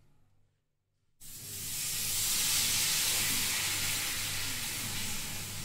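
Chilra batter sizzling on a hot oiled tawa: a loud, steady hiss that starts suddenly about a second in and eases slightly near the end.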